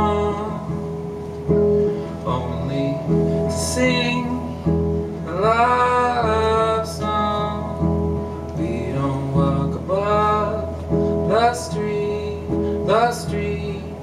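Hollow-body electric guitar played live through an amplifier: layered, held notes with recurring notes that bend and glide in pitch.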